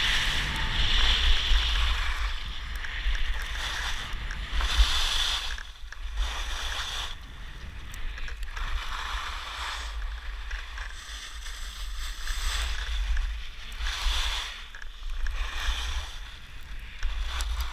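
Skis carving and scraping over snow, a hissing swish that swells and fades with each turn every couple of seconds, over steady wind rumbling on the microphone.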